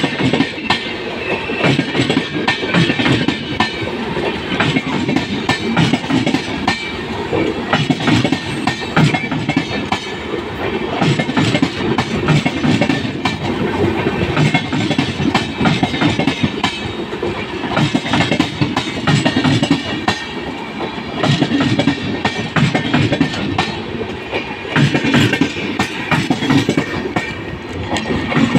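Jammu Tawi–Kolkata Express passenger train running at speed, its wheels clickety-clacking over the rail joints in a steady, dense stream of knocks.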